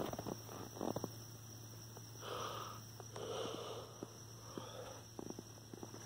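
Crickets trilling steadily at night over a low steady hum. Soft scattered clicks and two short rustling bursts, about two and three seconds in, sound close to the microphone.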